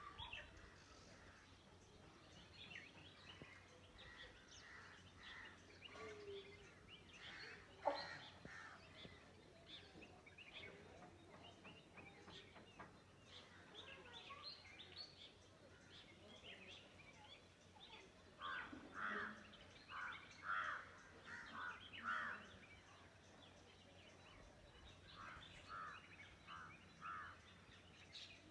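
Faint open-air ambience with scattered bird calls and chirps: a run of about six repeated calls past the middle and another four near the end. A single brief sharp click about eight seconds in is the loudest sound.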